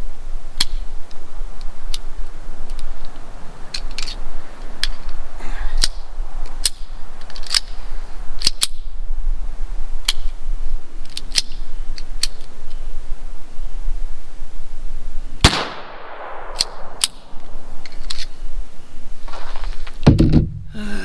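Llama XV Especial .22 LR pistol firing a string of shots at an uneven pace, sometimes two in quick succession, with the loudest crack about fifteen and a half seconds in. Handling noise follows near the end.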